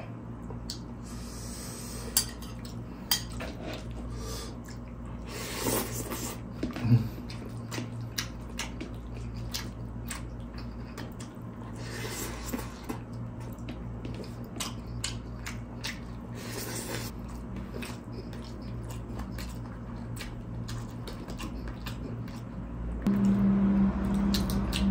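Close-miked eating of crispy fried spring rolls: crunching, chewing and the clink of a ceramic bowl and plate, in irregular sharp clicks over a steady low hum. About a second before the end a louder low, steady sound comes in.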